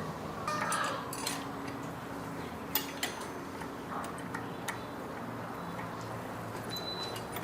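Scattered light metallic clinks and taps, a few sharp ones about three seconds in, over a steady low hum, as of tools and small bicycle parts being handled during repair work.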